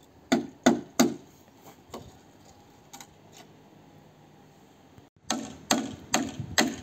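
Sharp knocks: three loud ones in quick succession, then a few fainter ones. After a lull comes an even run of knocks, about two and a half a second, near the end.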